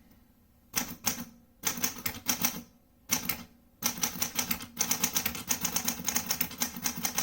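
Typing on a 1941 Smith Corona Sterling (model 3A) manual portable typewriter: the type bars clack against the platen in rapid keystrokes. After a brief pause come a few short bursts, then a steady fast run of keystrokes from about four seconds in.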